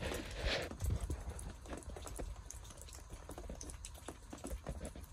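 Coal fire burning in a metal fire bowl, crackling with irregular sharp pops and clicks, with a brief hiss about half a second in.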